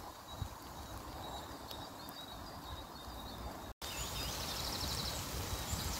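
Chicken, peppers and onions sizzling steadily in a non-stick frying pan over a wood-burning twig stove, with birds chirping in the background. The sound drops out for an instant just past halfway and comes back a little louder and closer.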